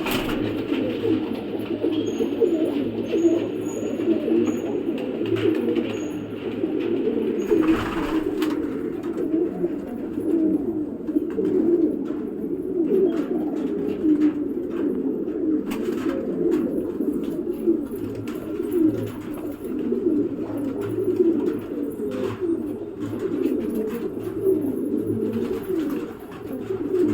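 A flock of blue domestic pigeons cooing continuously, many calls overlapping at once.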